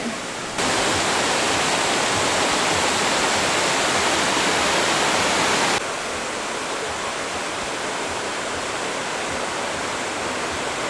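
Rushing water of a small river cascade: a steady hiss that jumps louder about half a second in and drops back abruptly a little past the middle.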